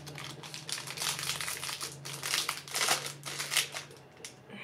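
Packaging of a makeup brush set crinkling and rustling in quick, irregular crackles as it is handled and opened, quieter near the end.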